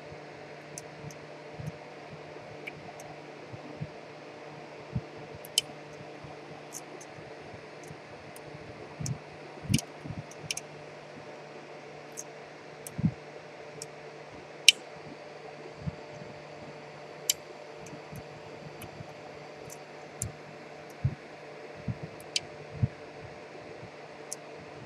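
Lock pick working the security pins of a six-pin Schlage lock cylinder: scattered small, irregular clicks and taps over a steady background hum.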